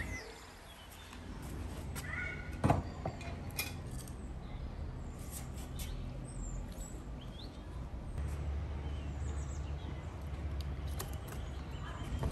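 Light clicks and taps of metal tongs handling whole baked trout, with one sharper knock a few seconds in. Faint bird chirps sound in the background, and a low rumble comes in during the second half.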